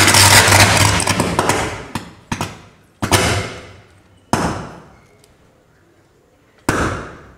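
Electrical arcing at a faulted pole-mounted distribution transformer as it burns. A loud arc lasts about two seconds with a low buzz under it, then four shorter flare-ups follow, each starting suddenly and dying away.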